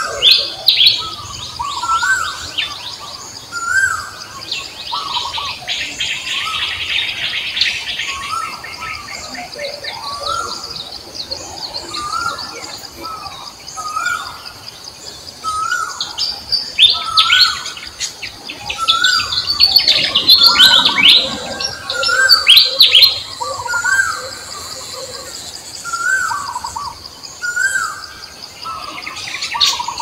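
Birds singing, one repeating a short rising-and-falling call over and over, about once a second, while others add higher chirps and quick trills over a steady high hiss.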